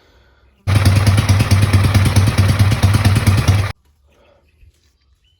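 Motorcycle engine running with an even pulsing beat. It starts abruptly about half a second in and cuts off suddenly about three seconds later.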